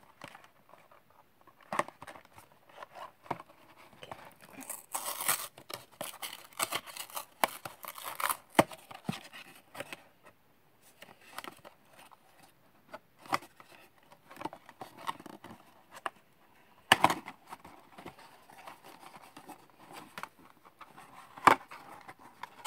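Small cardboard blind box being handled and opened by hand: scattered clicks, scrapes and rustles of cardboard, with a denser run of rustling about five to eight seconds in and a few sharp snaps of the flaps near the end.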